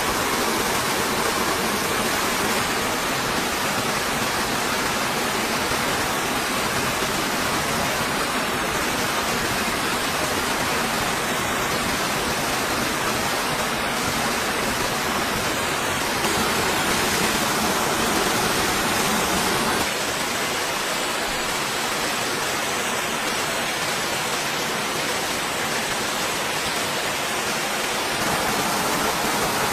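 Small waterfall pouring into a shallow rocky pool: a steady rush of falling water. The level shifts slightly a couple of times.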